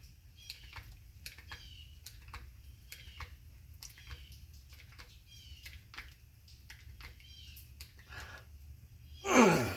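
A hand-pumped hydraulic lug crimper being worked to close a 1/0 gauge copper terminal: a run of faint sharp clicks, about two a second, mixed with small squeaks as the handle is pumped. Near the end comes a single louder squeal that falls in pitch.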